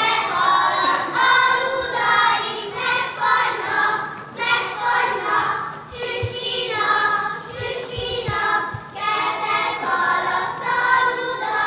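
A group of children singing a folk song together in sung phrases, with a few dull thumps partway through.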